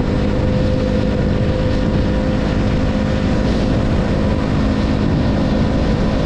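KTM Duke 200's single-cylinder engine running at a steady cruising speed, its note holding constant, under a steady rush of wind noise.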